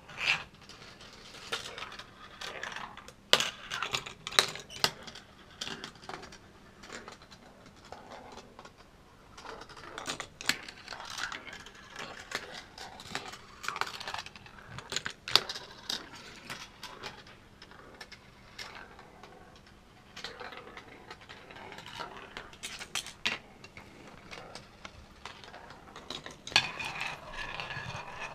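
Steel marbles rolling and clattering through a plastic Gravitrax marble run, with many sharp clicks and knocks scattered irregularly as they drop onto track pieces and hit switches and catchers. Near the end the sound turns steadier, a continuous rolling whir.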